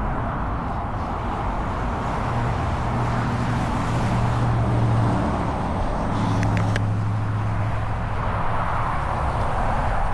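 Road traffic going by: a steady rush of tyre noise with the low hum of vehicle engines swelling twice as vehicles pass.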